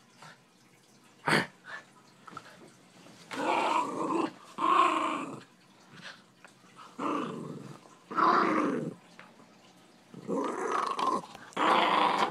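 Miniature schnauzer growling in about five short, rough bouts, with a sharp knock about a second in.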